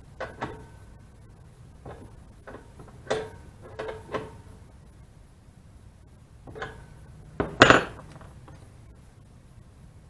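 Small metal fuel-line fittings being handled, giving scattered light clinks and taps, some with a short metallic ring, and one louder clatter about three-quarters of the way through.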